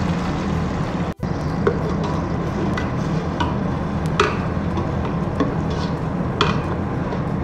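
Metal spatula scraping and tapping against a pan, about six sharp strokes, as ginger-garlic paste is stirred into fried onions, over a steady sizzle of frying oil.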